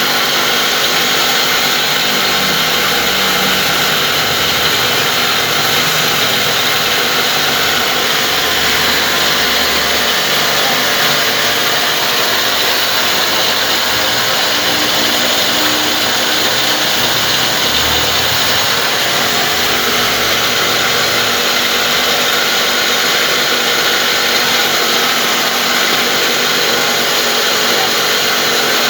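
Disk mill flour-grinding machine running loudly and steadily: a constant hum under a dense, even hiss.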